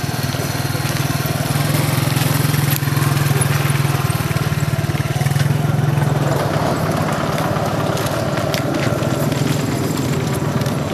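A motor vehicle's engine running steadily with a low hum, a little stronger in the first half, over general outdoor street noise.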